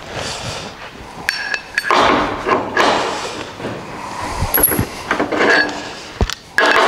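Hand work on a steel truck frame rail: irregular metallic clinks and short scrapes, with brief ringing tones from the steel.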